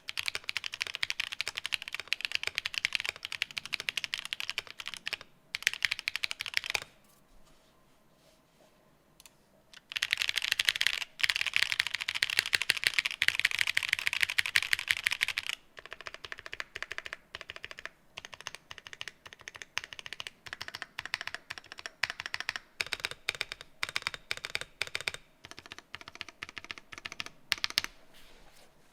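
Mechanical keyboard with KTT Rose linear switches and Cherry-profile keycaps being typed on continuously in fast runs of keystrokes. Typing pauses for about three seconds some seven seconds in, resumes louder and denser, then goes on more lightly until it stops near the end.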